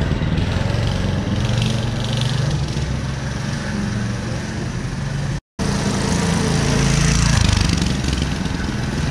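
A homemade mini bike's 200cc single-cylinder engine running as the bike is ridden, its engine speed rising and falling a little. All sound cuts out for an instant about halfway through.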